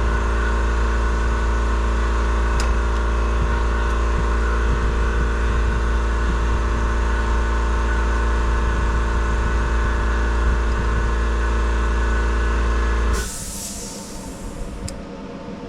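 Shop air compressor running steadily with a deep motor hum, then shutting off suddenly about 13 seconds in, followed by a short fading hiss of released air.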